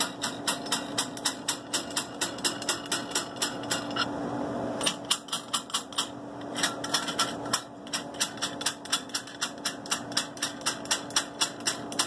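Steady rapid mechanical ticking, about four sharp clicks a second, over a low steady hum, pausing briefly a little after the middle.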